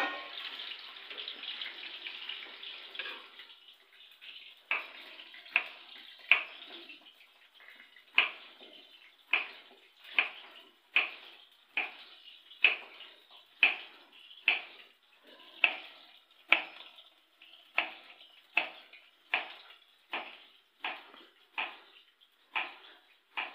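Frying sizzle dying down, then chopped bitter gourd (karela) pieces dropped one at a time into hot oil, each setting off a short burst of sizzling that fades quickly, a little more than once a second.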